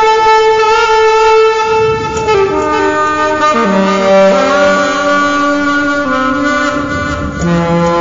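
A new saxophone playing a slow melody. It holds one long note for about two seconds, then moves through a series of shorter held notes.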